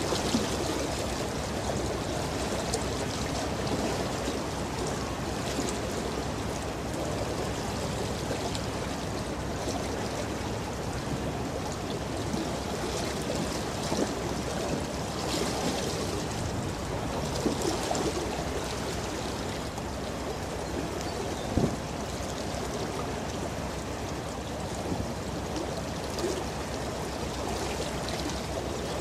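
Steady rushing and splashing of a container ship's bow wave breaking along the hull, with an occasional short knock.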